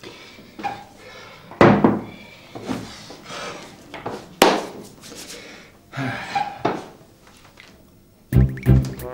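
Several sharp knocks and thunks of a glass and plate set down on a table and a chair moved as a man sits down, with short mumbled sounds between them. Music begins near the end.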